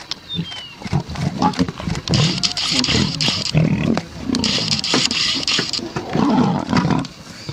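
A male lion and a lioness fighting, snarling and growling in loud, rough, repeated bursts that start about a second in.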